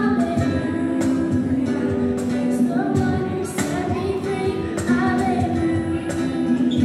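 A woman singing live, accompanied by a small acoustic guitar and the hits of a cajón.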